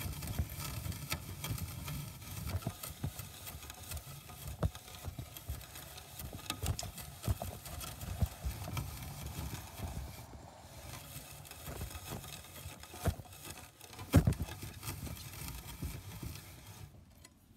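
Wind rumbling on a phone microphone, with irregular knocks and taps from handling; the loudest knock comes about fourteen seconds in.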